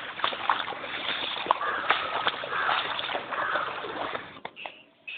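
Water splashing and sloshing continuously, with many small splashes, dying away about four and a half seconds in.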